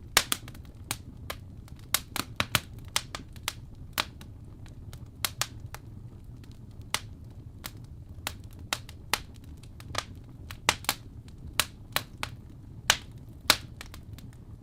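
Fire crackling: irregular sharp pops and snaps, several a second, over a low steady rumble.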